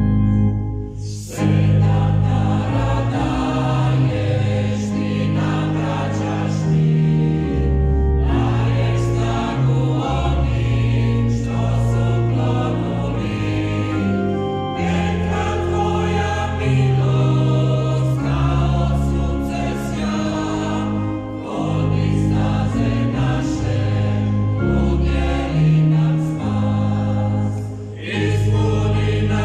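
A choir singing a slow hymn over sustained organ chords; the voices come in about a second in, after a moment of organ alone.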